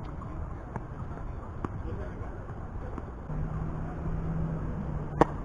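Tennis ball struck back and forth by rackets in a rally, a sharp pock every second or so, the loudest hit about five seconds in. A low steady engine hum starts about three seconds in.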